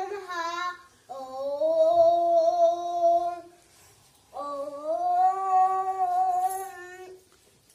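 A young girl singing, holding two long, steady notes of about two to three seconds each after a short wavering phrase; the second note starts a little higher.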